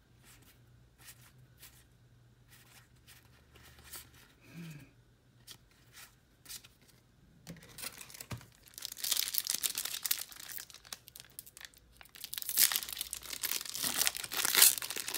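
Cards being handled with faint scattered clicks, then a foil trading-card booster pack wrapper being crinkled and torn open in loud, noisy bursts from about eight seconds in.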